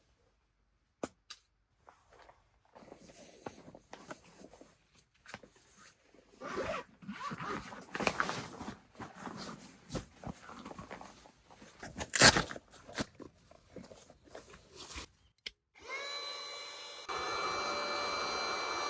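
Irregular clatter, scraping and knocks of things being handled, with one sharp knock about twelve seconds in. Near the end a steady chord of held tones begins.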